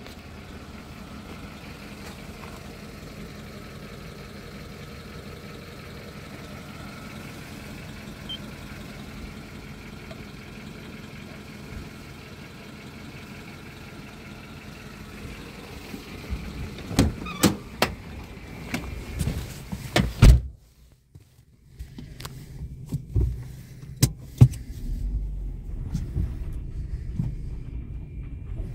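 Car engine idling steadily with a low hum, then a run of sharp clicks and knocks and a brief hush. After that comes a low rumble with further thumps heard from inside the car as it rolls into the wash bay.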